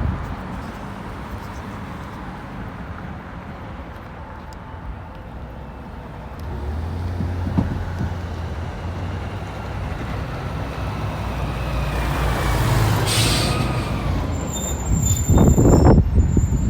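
A heavy diesel vehicle rumbling on the street, growing louder from about six seconds in, with a brief hiss of air brakes and a faint brake squeal a couple of seconds before the end.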